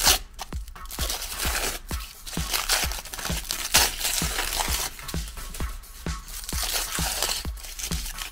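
Aluminium foil crinkling in bursts as it is peeled off a banana by hand, over electronic dance music with a steady beat.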